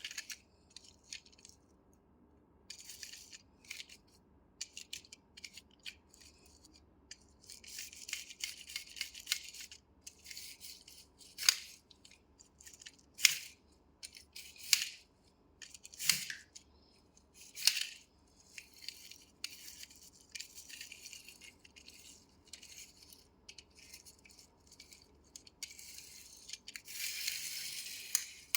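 Close handling noises: rustling and crinkling, broken by sharp clicks. A run of louder clicks comes about every second and a half midway, and a longer stretch of crinkling comes near the end.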